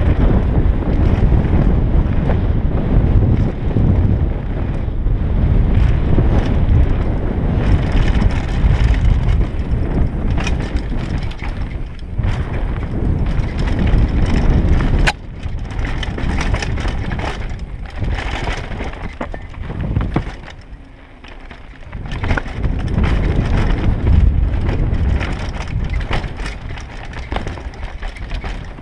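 Mountain bike ridden fast down a dirt trail, heard from a helmet-mounted microphone: steady wind buffeting with the tyres rumbling and crunching over dirt and stones, and many small knocks and rattles. There is a sharp click about halfway through and a brief lull a little later.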